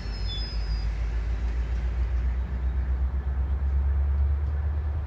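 GO Transit bilevel passenger coaches rolling past on the rails, a heavy low rumble that builds and is loudest about four seconds in. A brief high squeal sounds in the first second.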